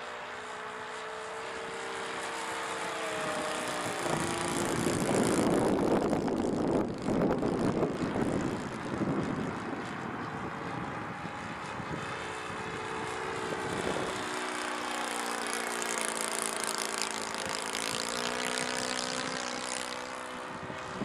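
SC91FS .91 four-stroke glow engine of a model Tucano turning a three-blade propeller in flight, its pitch gliding up and down as the plane passes and manoeuvres. From about four to nine seconds in, wind buffeting the microphone drowns it out and is the loudest sound.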